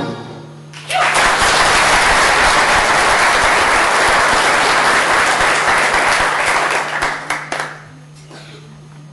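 Audience applauding in a hall at the end of a Highland dance: the clapping starts about a second in, holds steady for some six seconds, and stops near the end.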